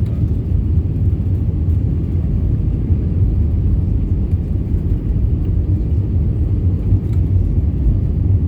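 Steady low rumble inside the cabin of an Airbus A320 airliner: engine and airflow noise heard from a rear window seat, unchanging throughout.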